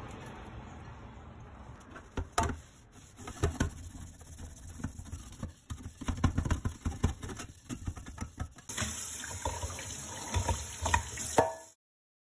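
A stainless steel frying pan being scrubbed with cleanser powder in a stainless steel kitchen sink while water runs: irregular rubbing, with knocks of the pan against the sink. It cuts off suddenly near the end.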